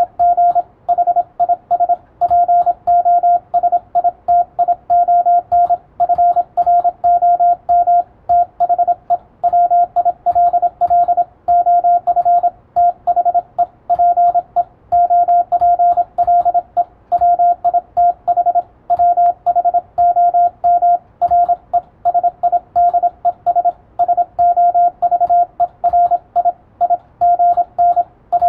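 Morse code (CW) tone keyed at a single steady pitch, a fast continuous run of dots and dashes sending English plain text: 'deriving his position from the will of the people with whom resides sovereign…'.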